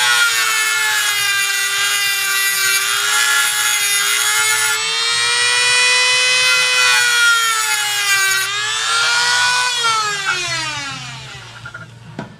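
Dremel rotary tool with a cut-off wheel running at a high whine, its pitch sagging under load as the wheel grinds slots into steel badge rivets, with a grinding hiss. About ten seconds in it is switched off and winds down with a falling whine, followed by a light knock.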